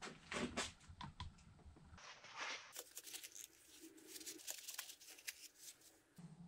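Faint, quick clicks, taps and scrapes of a screwdriver and small metal parts being handled against an aluminium motorcycle engine crankcase during disassembly.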